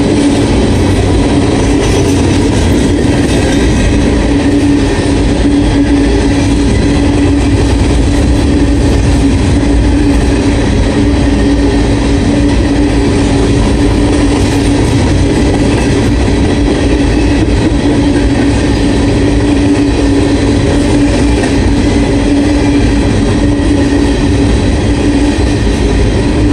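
Norfolk Southern freight train's hopper cars rolling past, a loud, steady running noise of wheels on rail with a constant hum.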